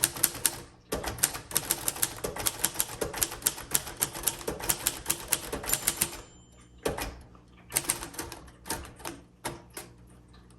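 1953 Royal Quiet Deluxe manual typewriter being typed on: keys striking the platen in quick runs of several strokes a second, with a brief pause about two-thirds through and shorter bursts after it.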